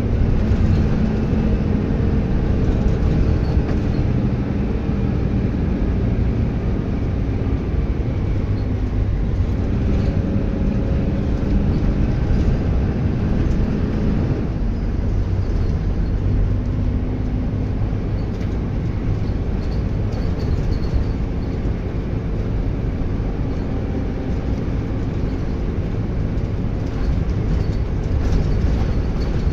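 Diesel bus engine running as the bus drives along, with a heavy low rumble and road noise; its pitch changes about halfway through as it shifts gear or changes speed. A faint turbo whistle comes and goes.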